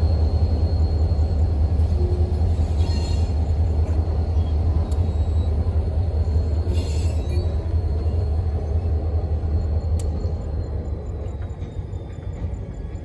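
Steady low rumble of a diesel locomotive close to the crossing, easing off a little near the end.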